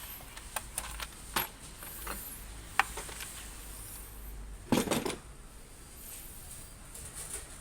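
Hand tools and small metal parts clinking and tapping against each other and the engine during engine disassembly, as scattered single clicks, with one heavier metallic knock about five seconds in.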